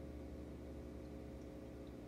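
Reef aquarium equipment, its pumps running with a faint, steady low hum and a few constant tones.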